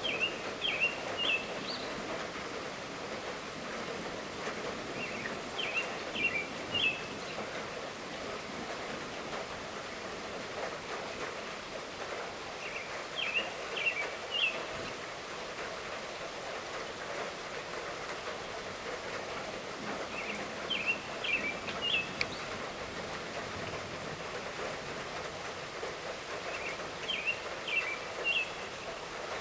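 Steady light rainfall. A bird repeats a short song of three or four quick chirps about every seven seconds over it.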